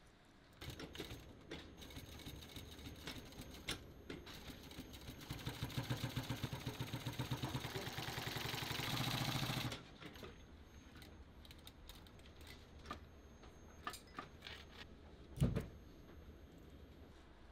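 Industrial sewing machine stitching a leather strap: rhythmic needle strokes speed up into a fast, steady run, then stop abruptly about ten seconds in. After that come scattered light clicks and one dull thump, with thread snips clipping the loose threads near the end.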